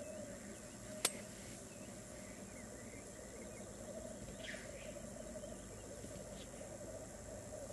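Black grouse at the lek, a continuous low bubbling chorus of displaying males rookooing. A single sharp click about a second in, and a short falling call about halfway through.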